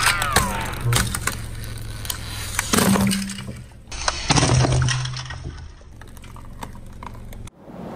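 A block of ice with a plastic toy car frozen inside cracking and crunching under a slowly rolling car tyre: a run of sharp cracks and snaps over a low steady hum, cutting off abruptly near the end.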